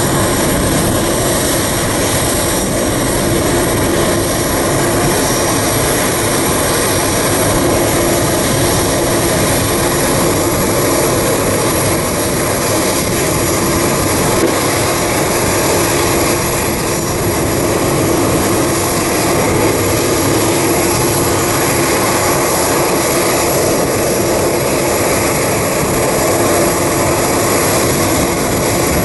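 Boeing 747-400 freighter's four General Electric CF6-80C2 turbofans at takeoff thrust: a loud, steady jet roar with a constant hum running through it as the aircraft rolls and climbs out.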